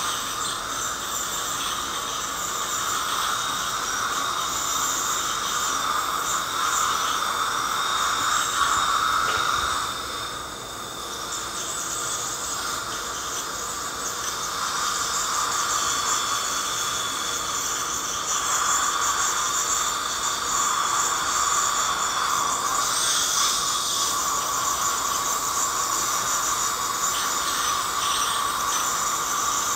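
Ultrasonic dental scaler running with its water spray, a steady high whine and hiss as the vibrating tip scales heavy tartar off the teeth; the sound dips briefly about ten seconds in.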